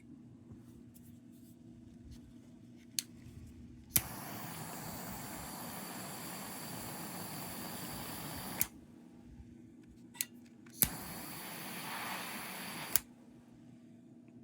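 Two bursts of hissing from a pressurised nozzle, the first about four seconds long and the second about two, each switched on and off with a sharp click. A few small clicks come before each burst.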